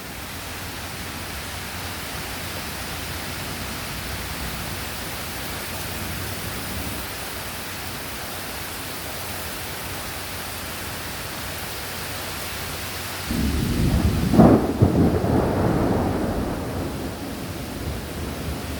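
Heavy rain pouring down steadily. About thirteen seconds in, a close thunderclap breaks in suddenly with a sharp crack and rumbles for a few seconds before fading.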